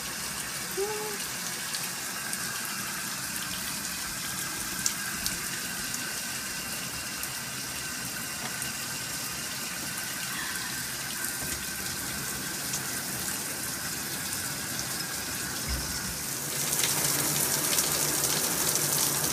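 Shower running: a steady hiss of falling water that grows louder and brighter near the end.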